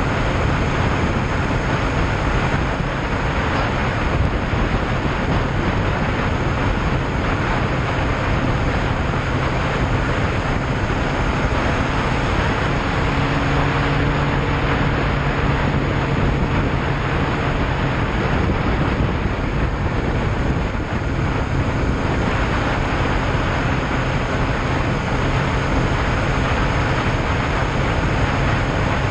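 Yamaha Fazer motorcycle cruising at a steady speed: its engine runs at an even pitch under heavy wind rushing over the microphone.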